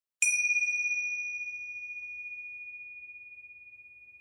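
A small bell-like chime struck once, a moment in: one clear high ring whose brighter overtones die quickly while the main tone fades slowly away. It marks the start of the hypnosis session.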